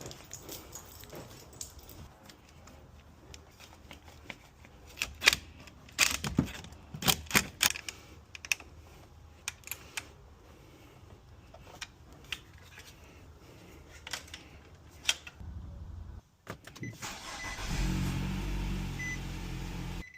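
Metal clinks and rattles of tools and battery hardware, then, near the end, the 2017 Nissan Rogue's engine starting and running steadily on its newly replaced battery.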